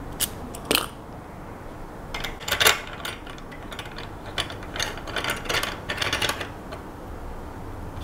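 Pick and tension wrench working a cheap wafer cam lock: small sharp metallic clicks and scrapes in scattered clusters, busiest a little past halfway.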